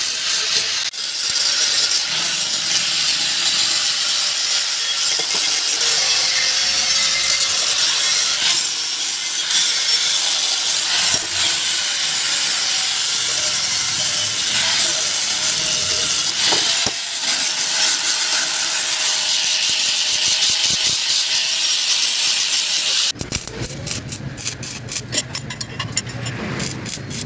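Hand-held angle grinder grinding a chrome-plated steel motorcycle exhaust header pipe: a loud, steady, harsh grinding. About 23 seconds in it cuts off abruptly and a quieter, rapid crackle follows.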